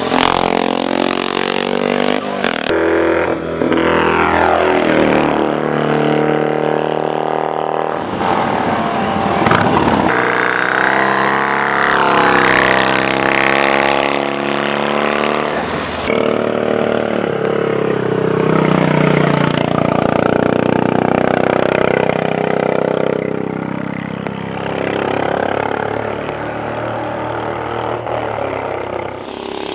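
1960s road-racing motorcycle engines revving as machines pass through a corner one after another, the pitch dropping as riders shut off and rising again as they accelerate away. The sound breaks off and changes abruptly a few times.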